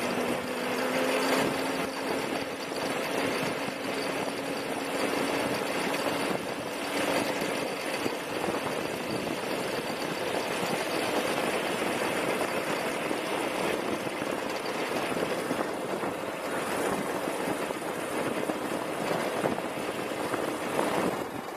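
Razor Ground Force electric go-kart driving on asphalt: steady tyre and road noise with rattling from the kart, and a faint motor whine that rises gently in pitch over the first several seconds.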